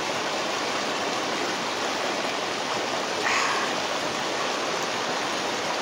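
Manu River floodwater rushing in a strong current over village land through a breached embankment: a steady, even rush of water, briefly louder a little past halfway.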